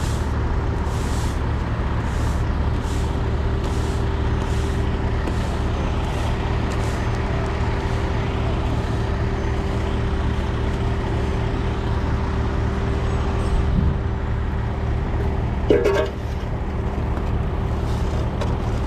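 Heavy diesel truck engine idling steadily, with a brief loud sound about three-quarters of the way through.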